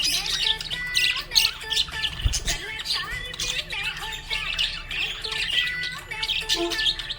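Budgerigar chirping and chattering in a rapid, continuous stream of short high-pitched calls, with music playing underneath.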